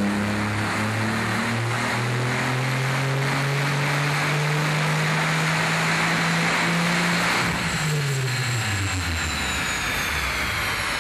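Porsche 997.2 Turbo's 3.8-litre twin-turbo flat-six, breathing through a Fabspeed 70 mm Maxflo exhaust, pulling under load with its pitch holding and creeping up. About seven and a half seconds in, the engine note drops away steeply as the throttle comes off. Near the end a high whine falls in pitch.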